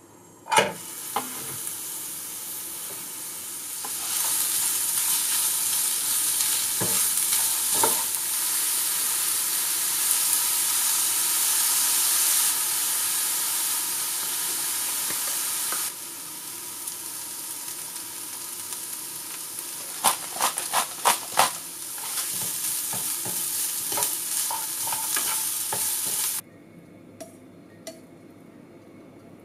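Julienned carrots sizzling as they stir-fry in sesame oil in a frying pan, starting with a loud hit as they go into the hot oil. Several quick knocks of the utensil against the pan come in the second half. The sizzle cuts off suddenly near the end, leaving a few light clinks.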